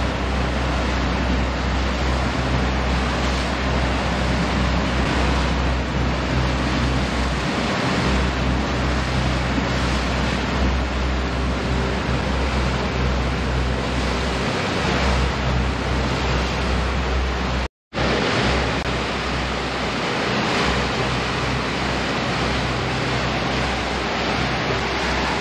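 Water rushing along the hull and churning in the wake of a motor yacht running at speed, with wind on the microphone and the low steady drone of the boat's engines underneath. The sound cuts out for a moment about eighteen seconds in.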